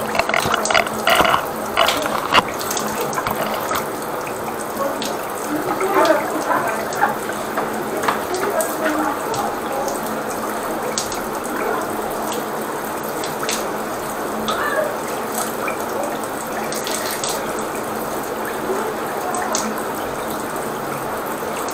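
Water running steadily through a floor drain during drain-clearing work, a constant rushing with a few light clicks.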